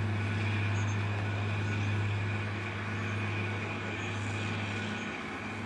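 A vehicle engine droning steadily at a constant low pitch, easing slightly about five seconds in.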